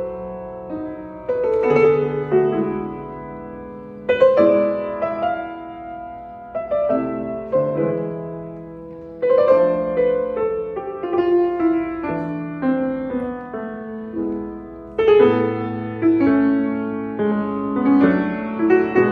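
Slow solo piano music: chords and melody notes struck every second or two, each ringing out and fading before the next phrase.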